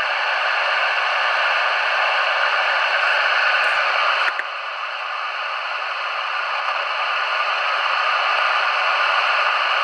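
Steady static hiss from a Realistic TRC-424 CB radio's speaker while it listens between calls, with its receive audio restored after repair. The hiss dips slightly about four seconds in.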